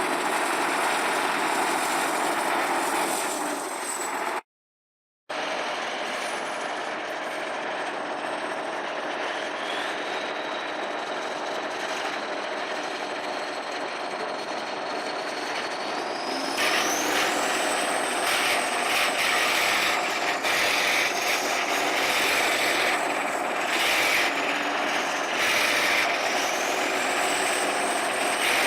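Heavy vehicle engine running, with a thin high whine that rises and falls. The sound drops out briefly about four and a half seconds in, then comes back louder and rougher from about sixteen seconds.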